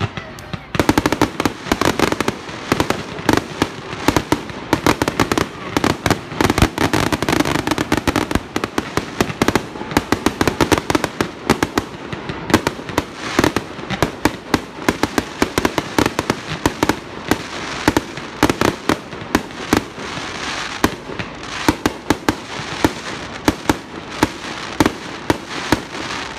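Aerial fireworks going off in a continuous barrage, several sharp bangs and pops a second over steady crackling, without a break.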